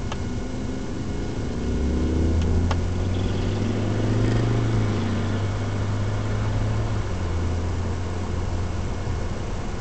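BMW 135i's N54 twin-turbo straight-six running under way, heard from inside the car with road and tyre noise. Its pitch shifts in the first few seconds, and a deep drone swells from about two seconds in to about seven. Two short clicks come close together about two and a half seconds in.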